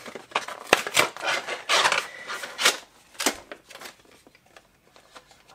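Cardboard knife packaging being pulled open and its contents slid out: rubbing and scraping with several sharp clicks and knocks, then quieter handling near the end.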